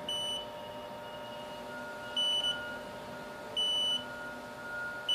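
Haas CNC lathe running an automatic tool-presetter probing cycle with the radial live-tooling end mill spinning. A steady machine hum runs throughout, broken by four short, high electronic beeps spaced about a second and a half apart.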